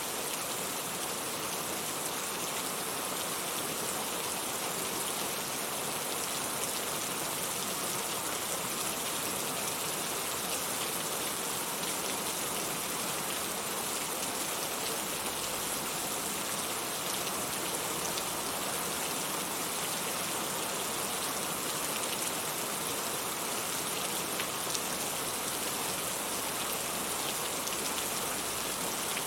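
Heavy rain falling steadily, an even hiss of rainfall with scattered drops ticking.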